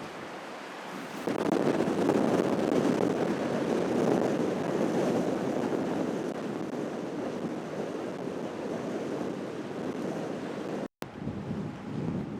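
Storm waves surging against the seafront in a gale, with strong wind buffeting the microphone. A big rush of water swells up about a second in and slowly eases off; the sound cuts out for an instant near the end.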